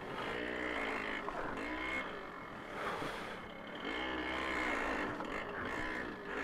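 Babetta 210 moped's small two-stroke engine running, revving up and down several times so its pitch rises and falls.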